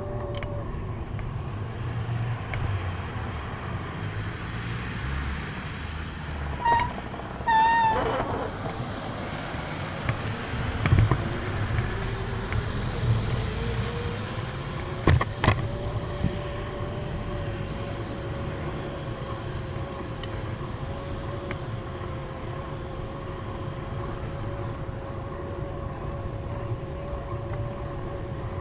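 Riding a bicycle on a paved cycle path: steady wind and tyre rumble with a faint steady whine. A brief warbling tone comes about seven seconds in, and two sharp knocks about fifteen seconds in.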